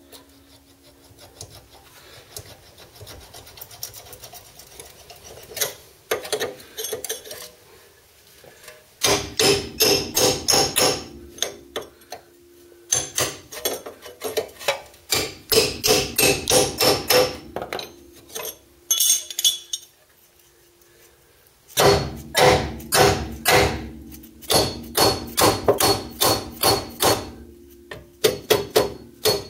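Hammer beating on a seized bolt in the front radius rod mounting of a VW T3 bus. The blows come in long runs of about three sharp metallic strikes a second, with a short ring after each and pauses between the runs.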